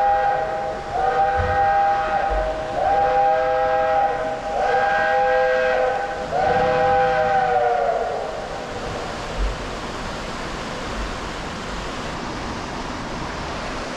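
Steam locomotive's chime whistle sounding a chord in about five blasts of a second and a half each, back to back. A steady hiss follows for the rest of the time.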